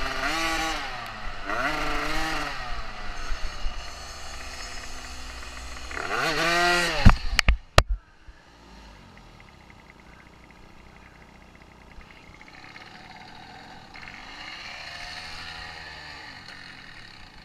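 Small dirt bike engine revving up and down repeatedly, with wind rushing past the helmet. About seven seconds in come a few sharp knocks as the rider goes down, then the engine is faint until it picks up again near the end.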